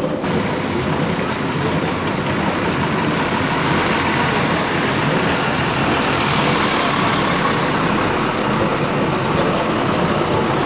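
Steady engine and road noise of an AEC Regent III RT double-decker bus, heard from inside its upper deck, growing a little louder a few seconds in.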